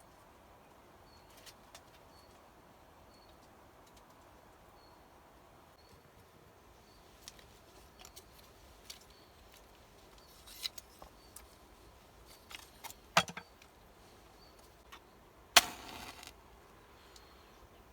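Scattered light clicks and knocks, with a sharp knock about two-thirds through and a louder clatter that rattles briefly near the end, over a faint high chirp repeating about once a second.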